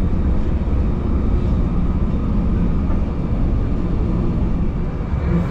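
Steady low rumble of a commuter train running along the track, heard inside the passenger car.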